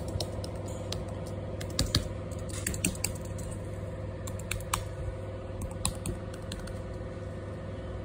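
Computer keyboard keys clicking irregularly, a few strokes at a time, over a steady electrical hum.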